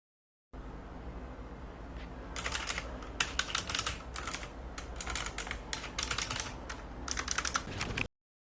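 Typing on an HJK917 mechanical keyboard with clicky blue switches, in quick runs of keystrokes with short pauses, over a low steady hum. The keystrokes start about two seconds in and the sound cuts off suddenly near the end.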